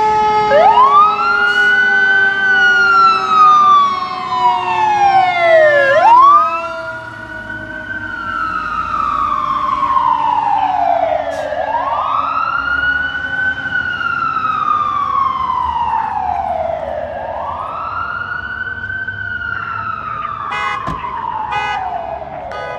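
LAFD fire engine's siren on the wail setting, rising and falling in slow sweeps about five to six seconds long, four times over. It is loudest at first and softer after about six seconds as the engine pulls away. Under it, a second steady tone slowly sinks in pitch.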